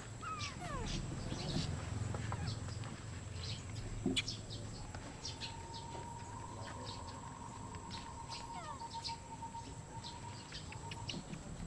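Short high chirps and squeaky calls from animals, scattered throughout over a faint steady high whine. A sharp click comes about four seconds in, and a long steady tone is held from about five seconds in until near the end.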